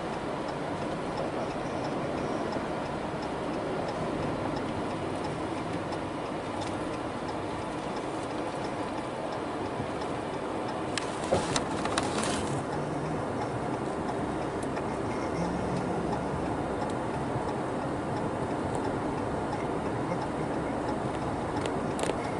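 Steady road and engine noise heard inside a moving car, with a short cluster of sharp clicks about eleven to twelve seconds in.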